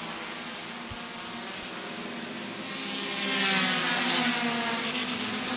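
Several race cars' engines running hard around a short oval, growing much louder as the pack comes past about three seconds in, with engine pitch sliding as each car goes by.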